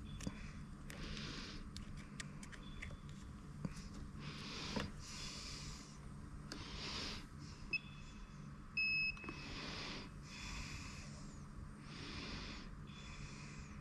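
Two short electronic beeps from an insulation resistance tester, about eight and nine seconds in, the second one longer and louder, during insulation tests on an EV high-voltage battery module. Under them, soft hissing puffs come about once a second over a steady low hum.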